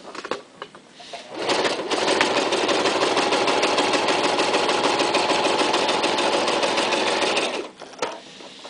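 Toyota Super Jeans J34 sewing machine stitching through two layers of thin leather: after a few light clicks it starts about a second and a half in, runs at a steady fast stitch for about six seconds, and stops suddenly.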